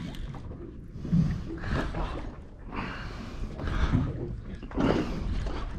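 An angler's heavy breathing while straining against a big fish on the line: about five short breaths roughly a second apart.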